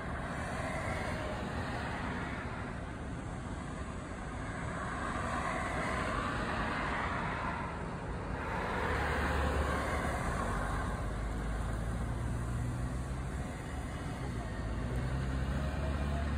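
Road traffic: several vehicles passing one after another, their tyre noise swelling and fading, with a low engine drone growing near the end.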